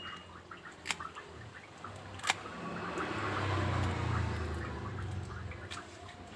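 Kitchen scissors snipping through raw gourami on a wet floor: scattered small clicks of the blades and wet handling, with two sharper clicks about one and two seconds in. A low rumble swells in the middle and fades again.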